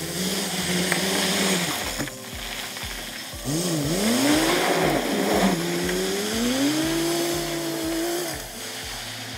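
Heavy dump truck's diesel engine working in a gravel pit, revving up and down as it pulls away, its pitch rising and falling several times before it fades about a second before the end.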